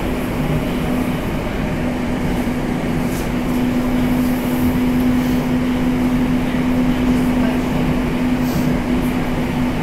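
Moscow Metro 81-765/766/767 'Moskva' train running at a steady speed, heard inside the passenger car. The running noise is a steady rumble with a constant low hum.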